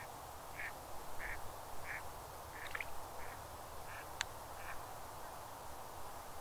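A duck quacking in a steady series of short calls, about one and a half a second, with a single sharp click about four seconds in.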